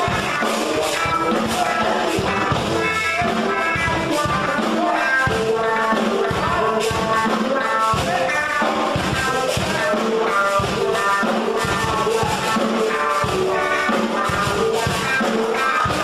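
Music with drums and a steady beat.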